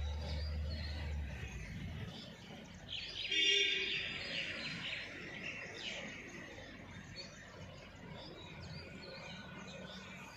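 Outdoor ambience with birds chirping, and one louder, brief high call about three seconds in.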